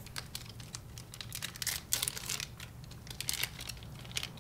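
Clear plastic bag crinkling and crackling in the hands as a lump of butter slime is pulled out of it, in quick irregular bursts.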